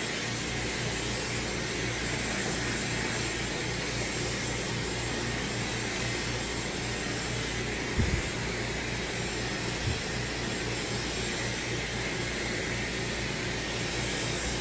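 Dyson Supersonic hair dryer running steadily on a high setting, air rushing through its flat concentrator nozzle onto hair, with a faint high whine in the rush. Two brief low bumps about eight and ten seconds in.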